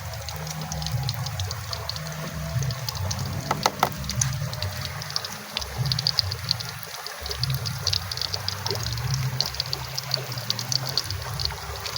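Water trickling and splashing steadily, with many small crackly ticks.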